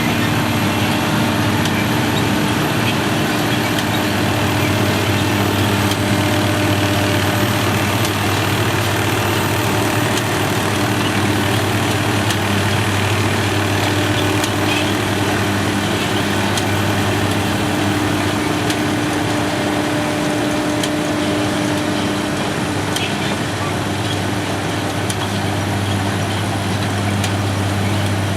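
Diesel engine of heavy potato-harvesting machinery running steadily under load, with a constant hum and faint scattered clicks over it.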